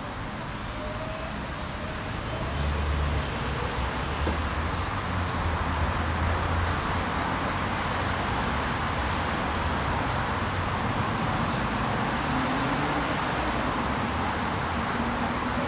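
Steady city traffic noise. A deeper vehicle rumble swells in about two and a half seconds in and fades back into the general traffic after a few seconds.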